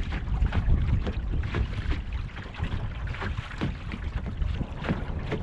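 Wind buffeting the microphone in a steady low rumble, with small waves slapping irregularly against the kayak's hull.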